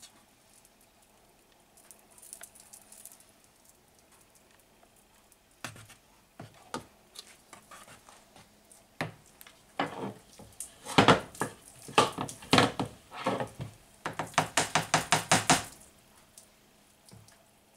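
A spatula scraping and knocking against a metal Bundt pan as thick cake batter is spread in it. Clatters start about six seconds in, grow busier, and end in a quick run of about ten knocks, some six a second.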